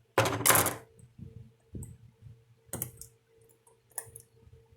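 Small chainsaw parts being handled on a workbench: a short loud scrape or rustle near the start, then a few sharp clicks, over a faint steady hum.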